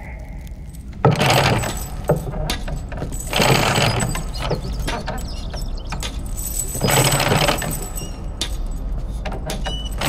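Rattling and clanking of a mine shaft lift cage and its metal machinery, with jangling clicks. It starts suddenly about a second in and swells in several louder surges.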